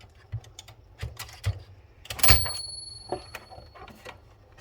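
Citizen X3 manual typewriter being handled, its carriage and tab mechanism clicking and knocking. About two seconds in comes one loud metallic clack, followed by a high bell-like ring that fades over more than a second.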